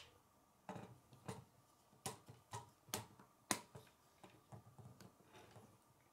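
Plastic K'nex rods and connectors clicking as they are handled and snapped together: a run of sharp, separate clicks, about seven in the first three and a half seconds with the loudest a little past the middle, then fainter ticks.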